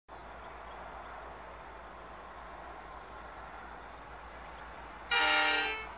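Steady rural background hiss with a few faint bird chirps; about five seconds in, the horn of an approaching Pacific National NR-class diesel freight locomotive sounds one short multi-tone blast, under a second long, that tails off.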